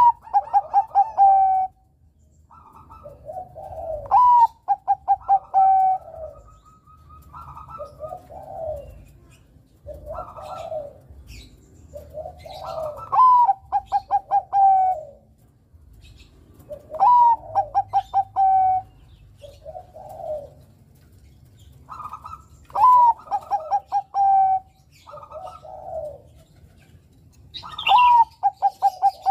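Zebra dove (perkutut, Bangkok strain) singing its cooing song: a bubbling phrase repeated about every four to five seconds, each opening on a high note and running into a quick string of pulses that falls slightly in pitch, with softer, lower coos between phrases.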